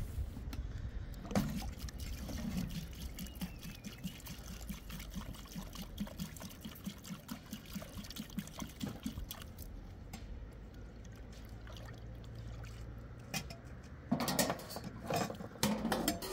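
Water pouring and sloshing, with a run of quick soft splashes, then a few sharp knocks near the end.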